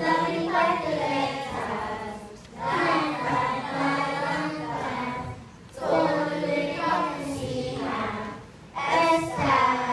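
A group of children singing together as a choir, in sung phrases about three seconds long with short breaks between them.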